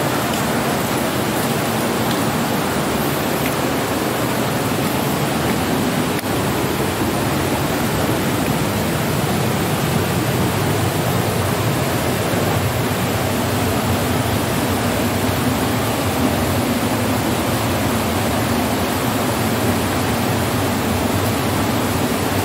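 Waterfall rushing steadily, a loud even roar of falling water.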